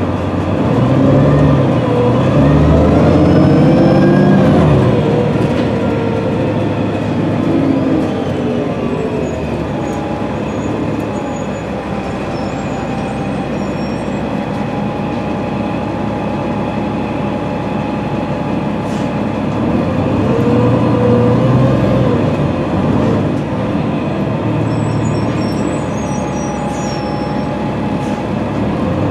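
Cummins ISM diesel engine and Voith D864.3E automatic transmission of a 2006 New Flyer D40LFR transit bus, heard from inside the passenger cabin while the bus is under way. The pitch climbs over the first few seconds as the bus accelerates, holds steady through the middle, and rises again about twenty seconds in.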